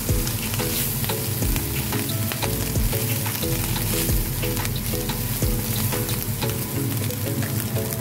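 Chopped mushrooms and meat sizzling steadily in a hot wok while a spatula stirs them, with many small clicks and scrapes of the spatula against the pan.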